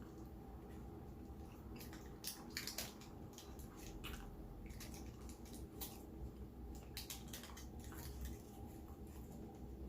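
Person eating close to the microphone: chewing with scattered wet smacking and crunching clicks.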